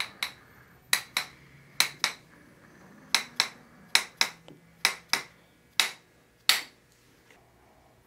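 A small mallet tapping a handheld adjusting instrument pressed against a man's shoulder muscle, as percussive hammer therapy. There are about a dozen sharp, clicky strikes, mostly in quick pairs about a second apart, which stop shortly before the end.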